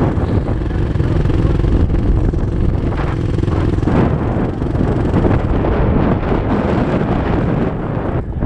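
Dirt bike engines idling, with wind buffeting the helmet-mounted microphone as a steady low rumble.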